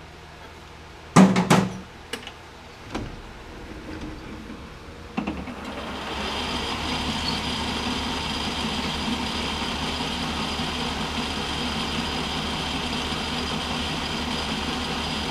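A few loud knocks about a second in, then the Smithy Granite lathe starts about five seconds in and runs steadily, its four-jaw chuck spinning, with a steady hum and a high whine.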